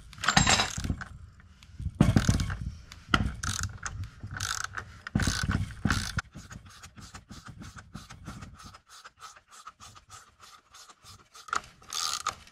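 A socket ratchet clicking as it turns the forcing screw of a jaw puller, drawing a VW Beetle crankshaft pulley off its crank. A few heavier strokes come in the first half, then quicker, lighter clicking of about five or six a second.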